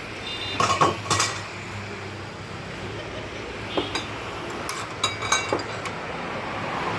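Metal pieces knocking and clinking together with a short metallic ring: a cluster of sharp knocks about a second in, then another scattered group about four to five and a half seconds in.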